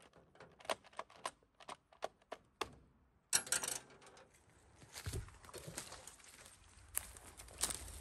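Light, irregular clicks and taps, two or three a second, from hands working on a chainsaw that is not running. About three seconds in comes a sudden scraping rustle, then a low rumble with a few dull thumps.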